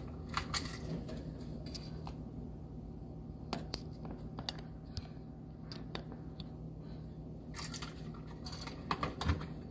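Scattered light clicks and taps of light switches and their wires being handled and pushed into plastic electrical boxes, some clicks close together near the end, over a steady low hum.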